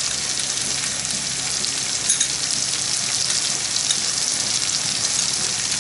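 Chicken and onion masala frying in oil in a kadhai, with a steady sizzle and a couple of faint clicks about two and four seconds in.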